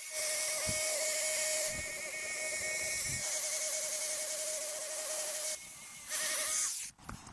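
Small handheld electric power tool running with a steady whine and hiss, its pitch wavering slightly as the load changes. It gets louder briefly near the end and then stops abruptly.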